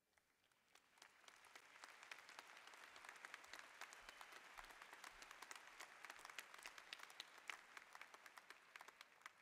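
Audience applauding, rising over the first second and thinning out near the end.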